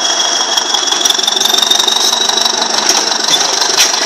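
A single-drum road roller's engine running loudly, with a high whine that rises slowly in pitch. There is a sharp knock near the end.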